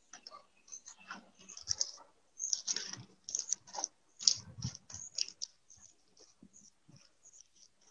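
Scissors cutting through bubble wrap, with the plastic sheet crinkling: a run of short, irregular snips and crackles, thinning out in the last couple of seconds.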